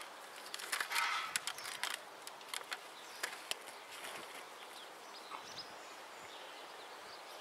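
Hands digging into stony soil, with loose stones scraping and clicking, mostly in the first few seconds. Then only a quieter outdoor background remains.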